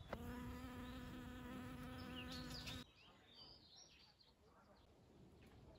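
Honeybee buzzing close up, a steady one-pitched hum that cuts off abruptly about three seconds in, leaving faint bird chirps.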